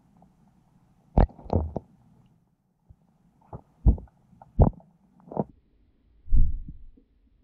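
Muffled knocks and thumps picked up by an underwater camera, about seven at uneven spacing, the one near the end longer and deeper.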